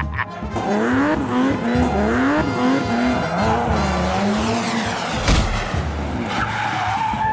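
Dubbed cartoon sound effect of a racing car engine revving up and down over and over, with tyre skidding. A sharp thump comes about five seconds in.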